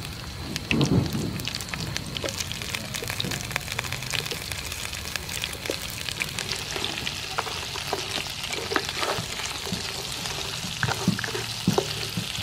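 Whole giant river prawns frying in hot oil with chopped garlic in a pan, a steady sizzle thick with crackles. A dull bump comes about a second in.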